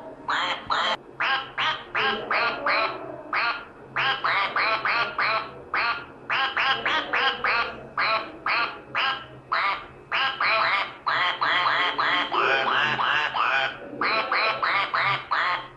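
Long series of quick duck quacks voiced for a yellow duck hand puppet, about three a second in short strings with brief gaps.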